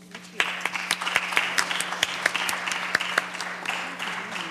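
Applause from a room of listeners, breaking out suddenly about half a second in as a dense clatter of claps. A steady electrical hum runs underneath.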